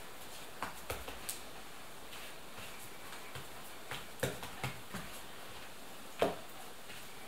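Hands rolling and setting down balls of yeast dough on a work surface: a scattered string of soft taps and knocks, the loudest about six seconds in.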